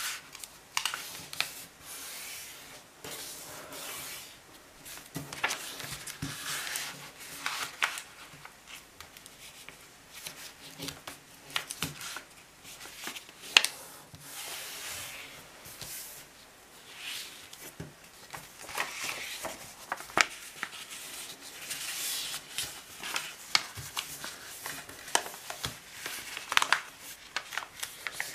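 A sheet of A4 paper being folded and creased by hand into a paper airplane: irregular dry rustles and swishes as fingers slide along the folds, with short sharp ticks of the paper.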